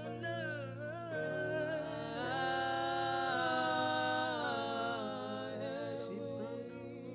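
Worship singing: one voice sings a slow melody over a steady low backing, holding one long note from about two seconds in to about four seconds in.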